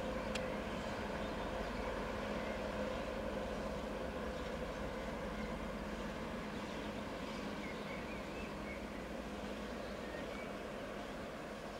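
Diesel locomotive's engine running with a steady drone as it moves slowly past, fading gradually toward the end. A single short click about half a second in.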